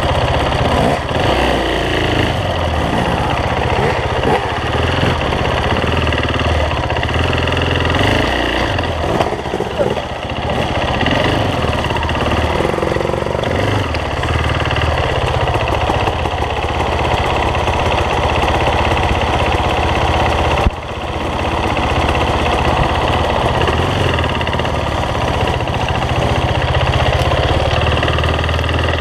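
Dirt bike engine running close-up at low, varying revs while picking along a rough wooded trail, with a brief drop in sound about two-thirds of the way in.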